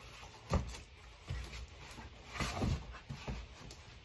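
Cardboard boxes being shifted and set down by hand: a few irregular dull thumps and scuffs, with a busier cluster a little past halfway.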